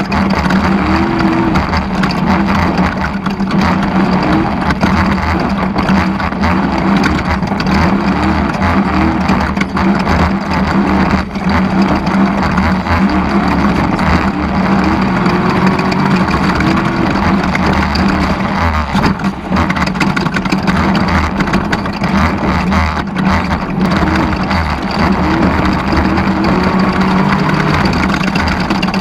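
Off-road race vehicle's engine running hard and without a break, its pitch wavering up and down with the throttle. A steady rush of noise and scattered short knocks run under it.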